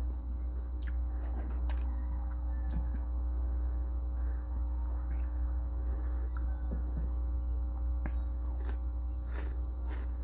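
Close-up mouth sounds of a person biting and chewing crisp, juicy bilimbi (kamias) fruit: scattered crunches and wet clicks, over a steady low hum.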